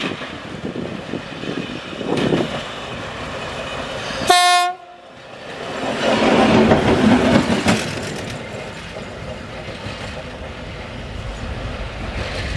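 2M62U diesel locomotive running light past, with one short horn blast about four seconds in, followed by the rumble of its engines and wheels on the rails, loudest a few seconds after the horn.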